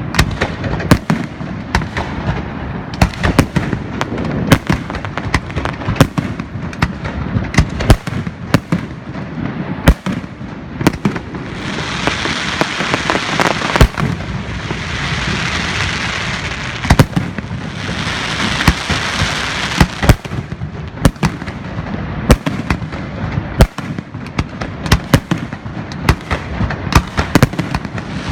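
Fireworks display: a rapid, irregular string of sharp shell bursts and bangs. Midway through there are two stretches of dense hiss, each a few seconds long.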